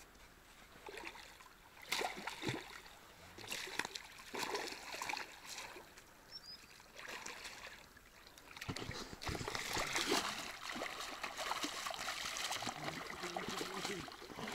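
Shallow river water splashing and sloshing as a hooked catfish is brought in at the bank. There are a few separate splashes at first, then from about nine seconds in a steadier, louder sloshing.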